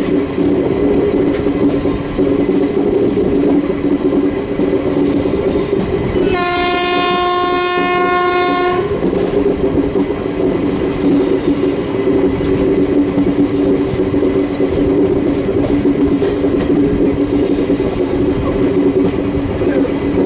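A WCAM-2P electric locomotive's horn sounds one steady blast of about two and a half seconds, starting some six seconds in. Underneath is the continuous running noise and clickety-clack of the moving train.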